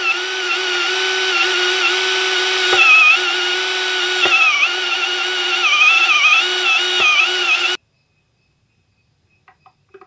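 Cordless drill with a step drill bit boring through a plastic project box: a steady motor whine that dips in pitch now and then as the bit bites, with a few sharp clicks. It stops abruptly about three-quarters of the way through, leaving only faint clicks of the part being handled.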